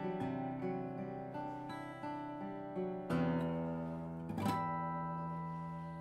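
Beneteau Zircot steel-string acoustic guitar fingerpicked, then a full chord struck about three seconds in and another about a second later, left to ring and fade away.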